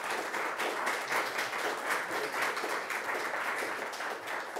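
Audience applauding: dense, steady clapping that eases slightly near the end.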